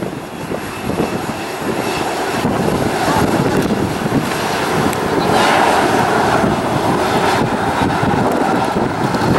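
Jet engines of a Boeing 737 running as the airliner taxis and turns, a steady rushing roar that grows louder over the first few seconds and swells about halfway through.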